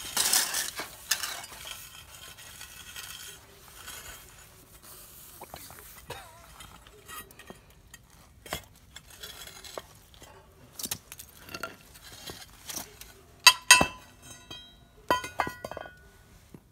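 Metal clinking, knocking and scraping as ingot molds and tools are set down and shifted on firebricks, in scattered irregular strikes. Near the end come a couple of sharp clanks with a short metallic ring.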